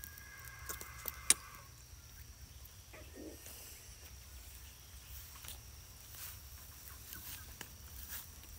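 Footsteps and camera handling on wood-chip mulch: scattered soft crunches and rustles, with one sharp click about a second in, over a steady faint high-pitched whine.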